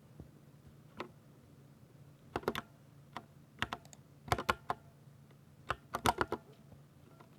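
Typing on a Ducky 60% mechanical keyboard with silver switches: sharp keystroke clacks in short bursts of two to five keys with pauses between them, plus a few single presses.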